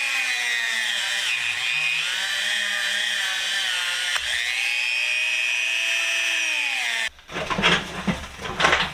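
Small electric power tool running at speed, its whine sagging in pitch and recovering as it is pressed into the work while cleaning the inside of an old metal hand drill. It cuts off about seven seconds in, followed by a few knocks and clatter of handling.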